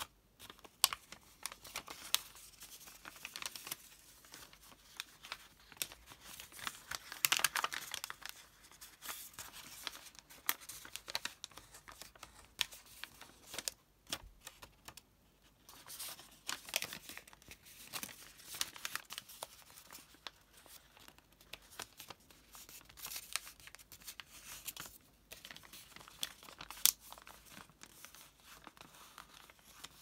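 Origami paper rustling and crinkling as hands fold it into a multi-layered model, with frequent sharp crackles and short quiet pauses about halfway through and again near the end.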